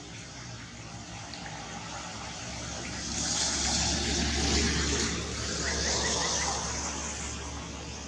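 A rushing noise that swells about three seconds in and eases off near the end, with a low rumble underneath.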